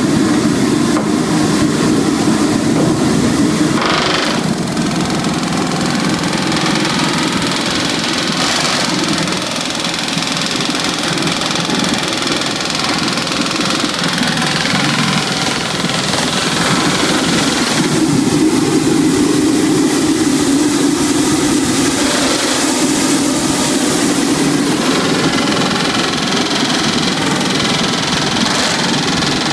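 Pneumatic rivet guns hammering red-hot steel rivets into a ship's steel bottom plating, a loud, steady, rapid hammering that goes on without a break.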